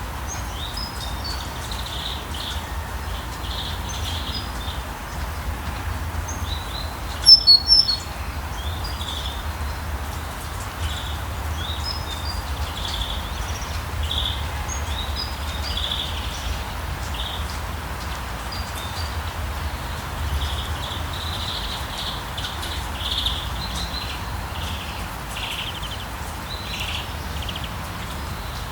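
Steady rain falling over a low, constant rumble, with birds chirping again and again. One brief, loud burst of sharp high chirps comes about seven seconds in.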